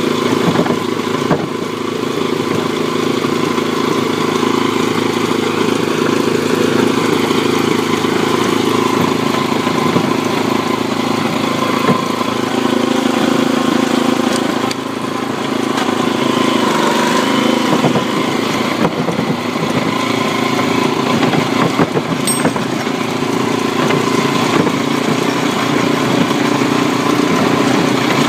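Kubota TF 65 two-wheel tractor's single-cylinder diesel engine running steadily while the machine drives along, with a few brief clatters.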